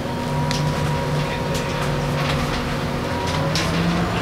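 Bus engine running and the hum of the bus moving slowly, heard from inside it, with a few short clicks and rattles.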